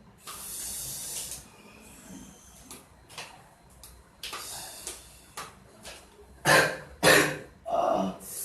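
A person coughing hard twice and then once more near the end, after several breathy, hissing exhalations. The coughs come from a patient with wet lungs and a long-standing cough.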